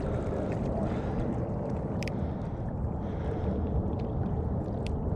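Kayak moving on open water, with water swishing and gurgling against the hull over a steady low rumble of wind on the microphone. Two light clicks, about two seconds in and near the end.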